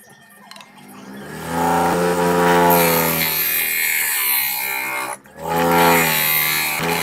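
Homemade grinding machine running, a steady motor hum under the hiss of abrasive working against a piece. It starts about a second in, cuts off sharply a little after five seconds and starts again.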